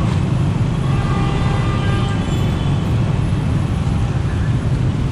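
Dense scooter and motorbike traffic moving at a crawl, many small engines running together close around the rider's own scooter as a steady low rumble.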